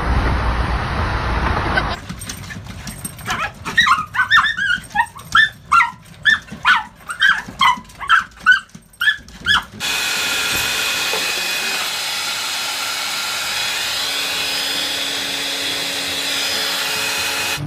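Road noise inside a car, then from about two seconds in small dogs barking in a rapid run, about two barks a second for some six seconds, then a steady hiss.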